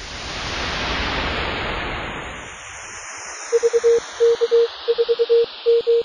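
A hiss of radio static swells up over the first second and fades. About three and a half seconds in, a single-pitch Morse code tone starts keying the opening of the callsign VK4GHZ (V, K, 4).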